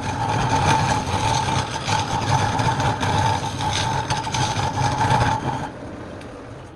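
Wood lathe running with a steady whine over a low hum and rough noise, dropping away sharply about five and a half seconds in.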